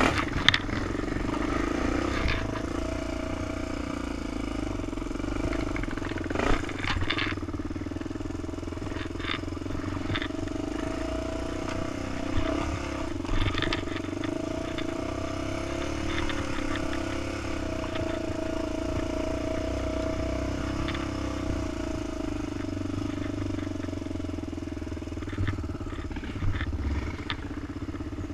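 A sport quad's single-cylinder four-stroke engine running at a fairly even pace while it is ridden over a rough dirt trail, with scattered knocks and clatter as it goes over rocks and bumps; the sharpest knock comes about six and a half seconds in.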